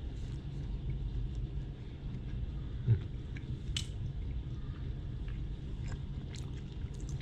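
A man chewing a mouthful of soft roti gambung bread roll, with scattered faint mouth clicks over a steady low hum. One brief thump about three seconds in.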